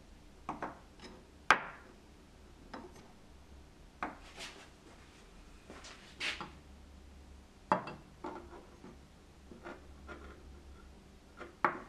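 Wooden-handled carving knives and gouges being picked up and set down on a tabletop. About ten separate sharp knocks and clicks of wood and steel on the surface, the sharpest about a second and a half in.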